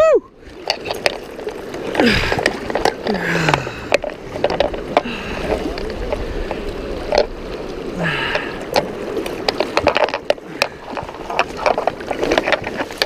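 River water rushing and splashing around an angler wading in a fast current, with frequent knocks and rubbing from handling the rod and gear close to the microphone.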